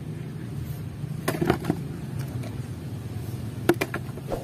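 A muddy toy truck knocking and clicking against concrete several times as it is handled and set down, in two clusters about a second and a half in and near the end, over a steady low hum.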